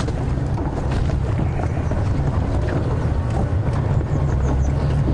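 Safari game-drive vehicle's engine running steadily as it drives off-road through the bush. Scattered clicks and knocks come from the rough ground.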